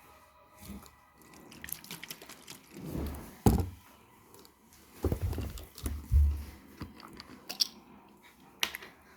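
Close-up chewing and crunching of crumbly freeze-dried astronaut ice cream, with crisp crackles and a few louder low mouth thumps; a sharp knock about three and a half seconds in is the loudest sound.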